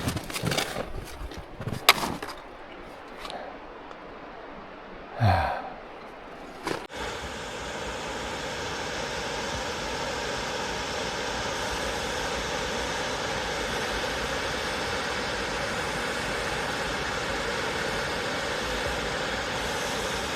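Hard breathing and a sigh from a hiker on a steep snowshoe climb, then, about seven seconds in, an abrupt change to a steady rushing of falling water from a waterfall.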